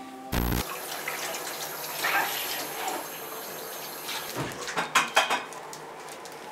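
Kitchen tap running into a stainless steel sink as dishes are rinsed under it, a steady rush of water. A few sharp clicks come about five seconds in.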